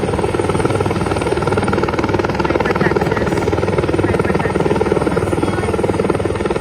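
Helicopter running steadily, its rotor beating in a fast, even chop.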